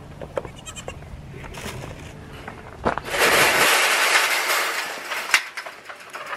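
Nigerian Dwarf goats and kids bleating as they crowd around and are herded along, with a louder stretch of calling about three seconds in that lasts nearly two seconds.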